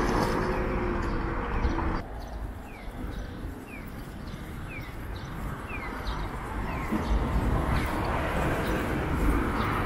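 Street traffic with a vehicle engine running close by, cut off abruptly about two seconds in. Then a bird repeats short falling chirps roughly every three-quarters of a second over distant traffic noise, which grows louder again near the end.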